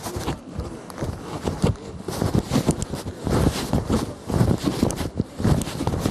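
Footsteps close to the microphone: a quick, irregular run of thumps and scuffs, about three a second.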